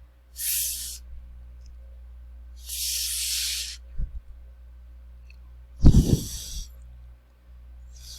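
A woman voicing isolated voiceless fricative consonants, the /f/ and /θ/ sounds, as drawn-out hisses with no voice behind them: a short one about half a second in, a longer one near three seconds, and a louder, breathier burst near six seconds.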